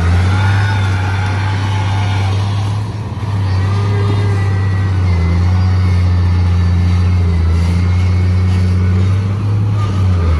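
Heavy diesel engine of construction machinery running steadily under load, with a higher whine that wavers in pitch above it. The engine dips briefly about three seconds in.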